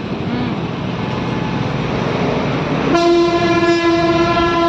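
Road traffic noise. About three seconds in, a vehicle horn starts honking: one long, steady, loud note held to the end, with a brief break near the end.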